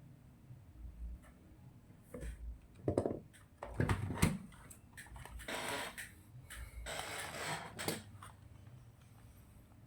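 Handling noises: scattered clicks and knocks, a few heavier thuds in the first half, then two short scraping or rustling sounds around the middle.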